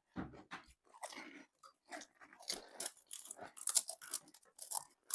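Pani puri being eaten fast: the crisp, hollow puri shells crunching and chewed in quick, irregular bites.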